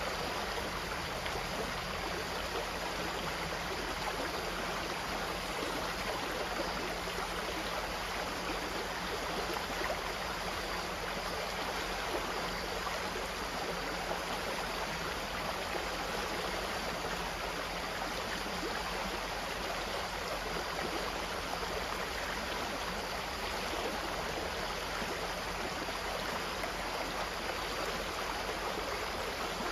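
Water flowing steadily, a continuous even rush with no breaks or changes.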